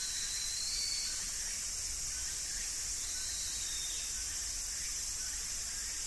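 Cicada chorus: a steady, high-pitched buzzing drone that holds an even level throughout.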